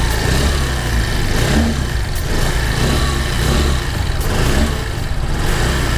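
Benelli Panarea 125 scooter's single-cylinder four-stroke, air-cooled 125 cc engine running at the exhaust, its note swelling and easing a few times as the throttle is blipped. It is loud for a 125.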